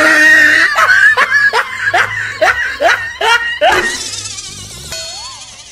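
A person laughing: a run of short, rhythmic 'ha ha' bursts, about two or three a second, fading out about four seconds in.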